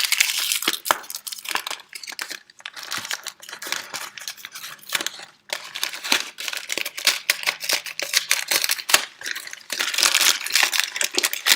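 Crinkling and tearing as a small box of cough drops, its flaps glued shut, is pried and ripped open by hand; a run of irregular crackles and clicks, pausing briefly about halfway through.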